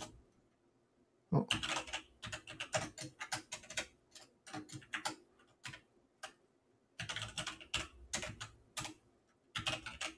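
Computer keyboard typing in quick bursts of keystrokes. It begins after about a second and a half of quiet and pauses briefly around the middle.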